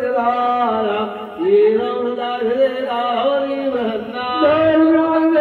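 Men's voices chanting a devotional chant in unison, with long held notes that glide from one pitch to the next; the chant drops briefly about a second in.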